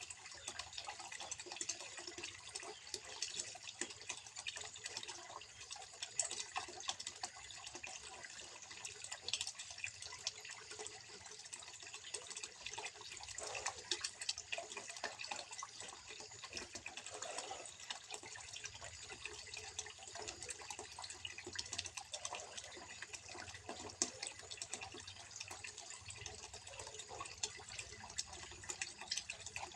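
Water trickling and splashing steadily into a small fish pond, a continuous patter of small drips and splashes.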